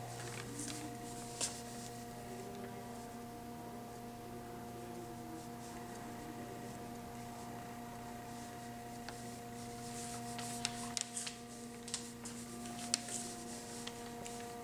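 A steady low hum with several tones, in a quiet room, with faint clicks and rustles in the last few seconds.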